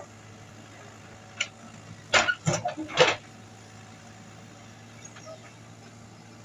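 Komatsu WB93R backhoe loader's engine running steadily, with a quick run of loud knocks a little over two seconds in and a single knock before it.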